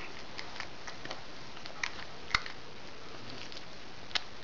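A cat chewing and crunching a mouse it has caught: irregular small clicks and crunches, with one sharp snap a little past halfway and another near the end, over a steady faint hiss.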